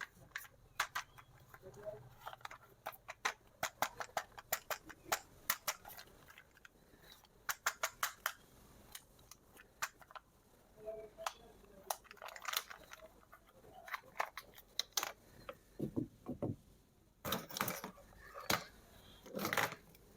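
Hands handling plastic toys and their packaging: irregular sharp clicks and taps, with a few duller knocks near the end.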